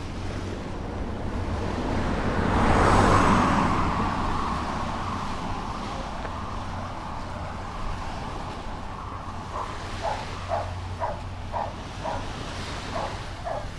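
A dog barking in a quick run, about two barks a second, through the last four seconds, over a steady low hum. A rushing noise swells and fades about three seconds in.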